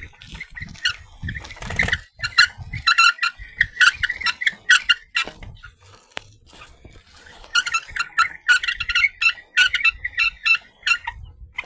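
Swamp creatures chirping: rapid squeaky calls in bouts of many short notes, with brief lulls between the bouts.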